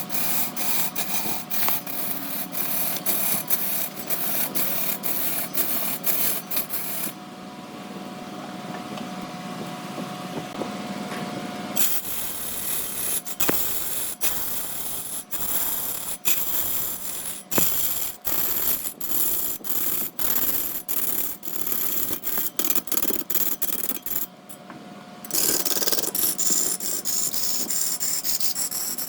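Wood lathe running while a tool scrapes and sands the spinning sapele, with many sharp clicks and a faint steady hum. The sound shifts abruptly several times, about a quarter, two fifths and five sixths of the way through.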